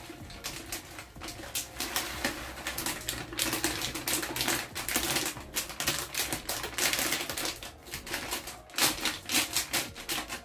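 Chocolate granola pouring from a plastic bag into a glass jar: a dense, uneven rattle of small dry clusters hitting glass and each other as the bag is tipped and shaken empty.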